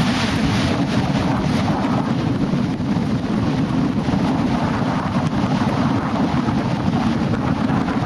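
Wind buffeting the microphone: a steady, deep rushing noise with no break.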